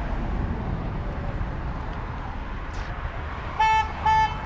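Car horn honking twice in quick succession, two short beeps about half a second apart near the end, over a steady low rumble.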